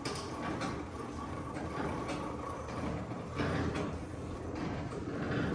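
Steering being turned by hand with the engine off while the power steering is bled: mechanical scraping and shifting through the steering gear, louder about three and a half seconds in and again near the end, over a steady low hum.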